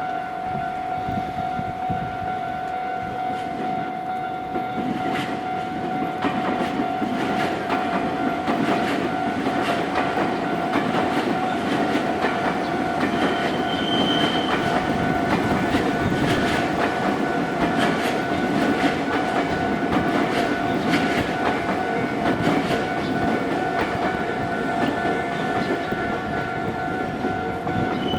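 Level crossing alarm sounding steadily while a Nankai electric train passes over the crossing, its running noise and wheel clicks growing louder about five seconds in and staying loud. A short high tone sounds about halfway through.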